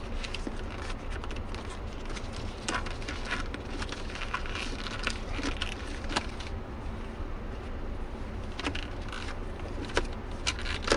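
Scattered light clicks and rustling as a shift knob and its shift boot are handled and worked on the gear lever, over a low steady hum.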